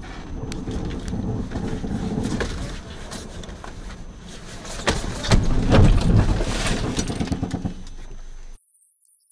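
Road noise inside a moving car, then about five seconds in a few sharp knocks and a loud noisy crunching rush as the car runs off the road into a snowbank and bushes, snow hitting the windscreen. The sound cuts off suddenly near the end.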